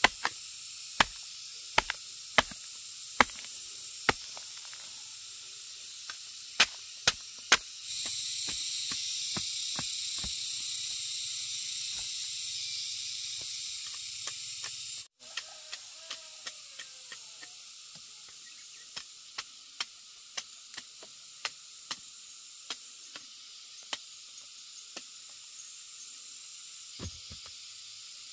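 Machete chopping into a fibrous, hairy fern rhizome: sharp single chops about one a second, coming faster, about two a second, in the second half. A steady high hiss runs underneath and is louder for several seconds in the middle.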